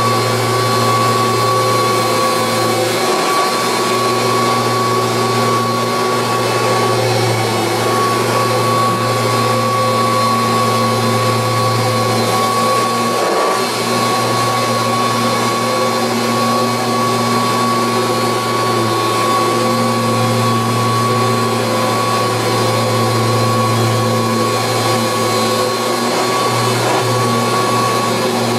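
1986 Kirby Heritage II upright vacuum cleaner running steadily: a constant motor hum with a high fan whine over a rushing of air, dipping briefly twice.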